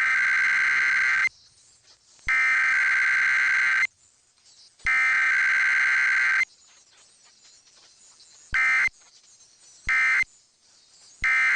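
EAS SAME digital header: three long bursts of harsh two-tone data screech, each about a second and a half, with about a second between them. Three short bursts follow, the length of the end-of-message code.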